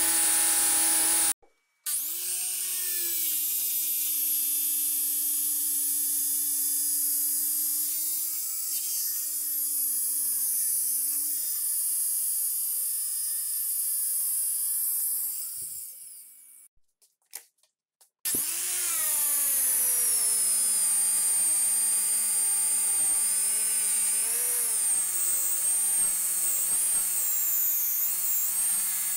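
Electric angle grinder with a buffing wheel polishing a steel knife blade: a steady high whine whose pitch wavers and dips at times. It cuts out briefly about a second and a half in, winds down and goes quiet around sixteen seconds, then starts again about eighteen seconds in, its whine rising as it comes up to speed.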